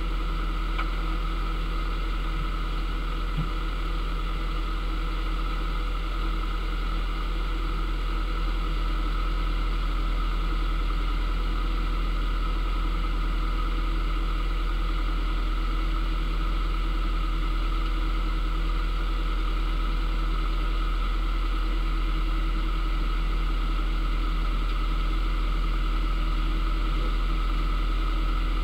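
Narrowboat's engine running steadily while the boat cruises, a constant low hum with a steady drone over it.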